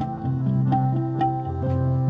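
Instrumental passage in a ghazal: a plucked string instrument plays a melody of separate stepping notes over a held low tone, with tabla accompaniment.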